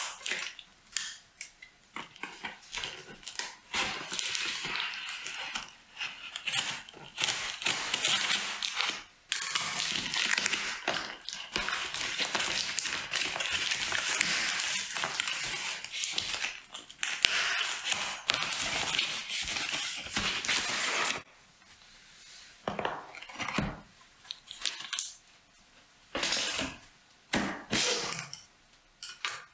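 A cardboard shipping box being opened: scissors cutting and scraping through packing tape and cardboard, making a long run of rasping and rustling. After about 21 seconds it gives way to quieter scattered knocks and rustles as the box is handled.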